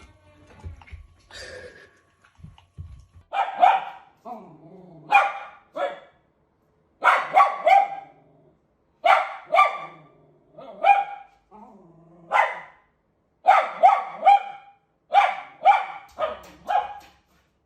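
A dog barking repeatedly in short runs of two or three barks, a run every second or two, with quieter, lower sounds between the runs.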